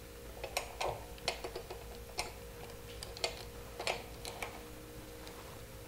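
A dozen or so small, irregular metal clicks and taps as throttle cable fittings are handled and seated at a motorcycle's twist-grip throttle, over a steady low hum.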